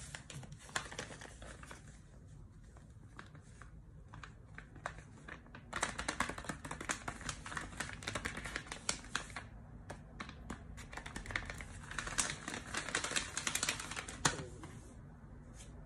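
Paper crinkling and crackling as a folded notebook-paper mystery pouch is picked up and handled, in two louder bouts of rapid crackles with lighter rustling between.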